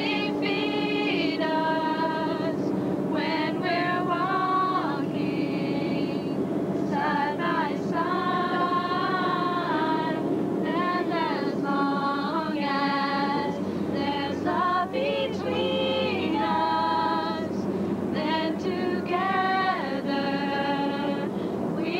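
A female voice singing a slow song, with long held notes that waver in vibrato and slide between pitches.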